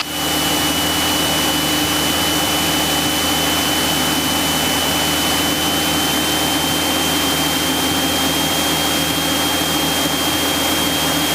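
Cessna 172SP's four-cylinder Lycoming engine and propeller running steadily, heard inside the cabin, with a thin high whistle held throughout.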